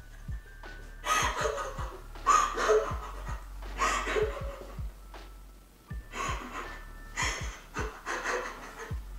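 Emotional laughing and crying at the same time: breathy sobs and gasps coming in short bursts, about one a second, with pauses between.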